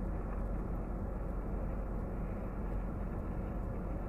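Steady low hum and hiss of a car idling while parked, heard inside its cabin.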